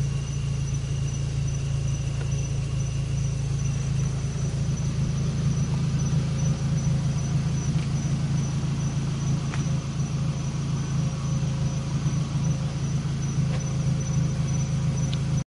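A Dayton Titanic 15-inch subwoofer, driven with about 800 watts, playing loud, steady deep bass. The sound is distorted because the camera's microphone is overloaded, not because the subwoofer is.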